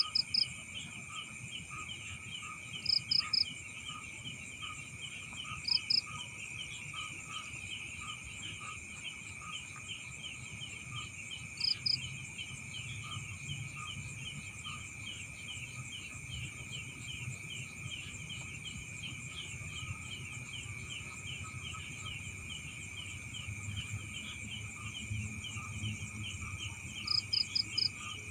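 Night chorus of crickets and other insects: a steady high buzz with fast, repeated chirping. Several times, a nearer and louder chirp of three or four quick pulses stands out.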